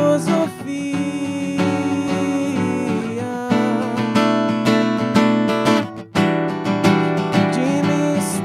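Acoustic guitar strummed in an instrumental passage between sung verses, with a short break in the strumming about six seconds in.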